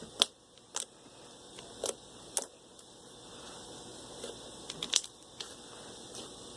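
Slime being squeezed and poked by hand for ASMR, giving sharp irregular clicks and pops, about eight of them, with soft squishing between.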